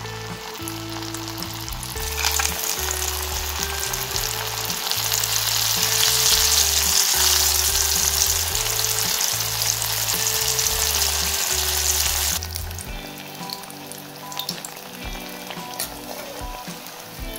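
Starch-battered banana flower slices deep-frying in hot oil: a sizzling hiss that grows louder about two seconds in and drops sharply to a quieter sizzle about twelve seconds in.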